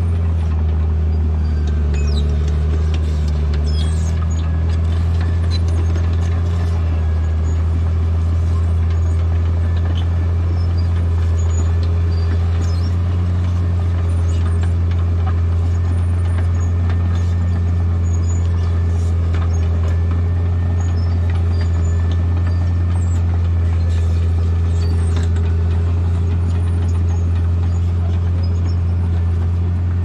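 Tracked bulldozer's diesel engine running steadily as the machine pushes through brush, a continuous low drone with faint scattered clicks over it.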